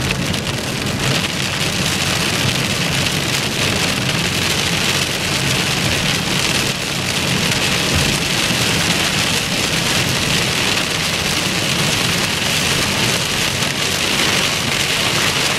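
Heavy rain pelting a moving car's roof and windshield, heard from inside the car as a steady hiss over a low rumble of road and engine noise.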